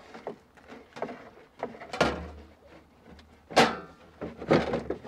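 Sheet-metal cover of a Chinese diesel heater being slid and pressed into place by hand: light scraping, then three sharp knocks as it seats.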